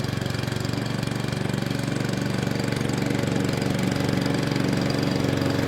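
Webb R460ES rotary lawn mower's 173cc petrol engine running steadily.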